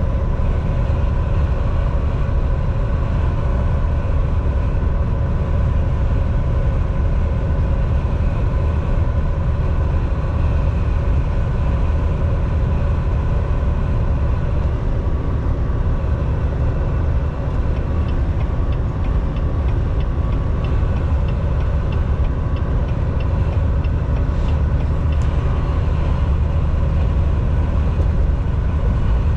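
A Volvo semi-truck cruising at highway speed, heard from inside the cab: a steady low rumble of engine and road noise with a faint steady whine above it.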